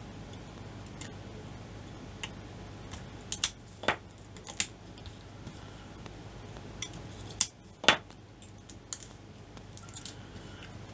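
Scalpel blade scratching and clicking against the shrink-wrap and plastic casing at the top of a 9-volt battery as the sleeve is cut away, with a few sharp ticks from handling the battery, over a low steady hum.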